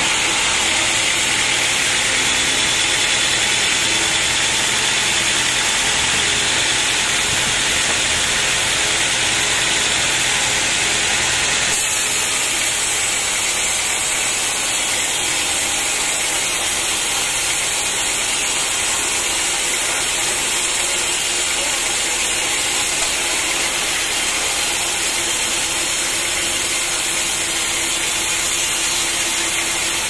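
A band sawmill's blade running steadily through a teak log, a continuous hiss of sawing over the machine's running motor.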